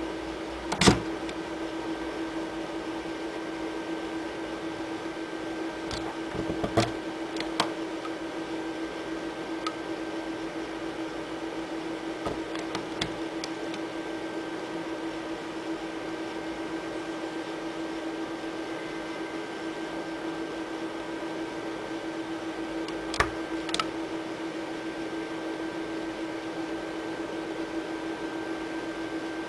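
A steady low electrical-sounding hum, with a few sharp clicks: one about a second in, a couple around seven seconds in, and two more around twenty-three seconds in.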